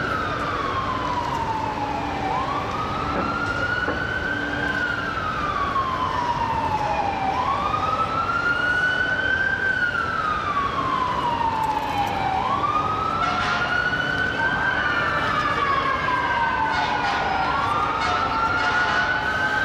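Fire truck siren sounding a wail, rising and falling in pitch about once every five seconds, over street traffic noise.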